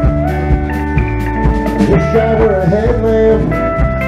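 Live southern roots rock band playing: electric guitar over a drum kit, with sustained notes that bend in pitch.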